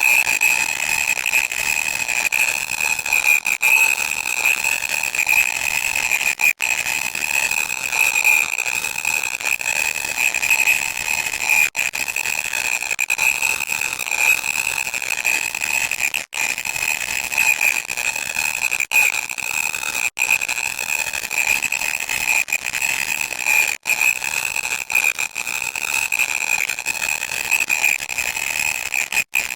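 Loud, harsh electronic static: a steady high whine over a hiss, cutting out for an instant every few seconds.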